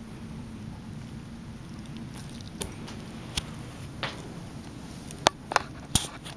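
A Siamese kitten grooming a tabby cat makes a steady low rumble under scattered sharp clicks. The clicks come in a quick, louder run about five to six seconds in.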